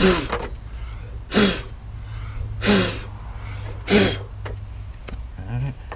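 A person blowing sharply four times, about a second and a half apart, to blow loose dirt out of a car's engine bay. A steady low hum runs underneath.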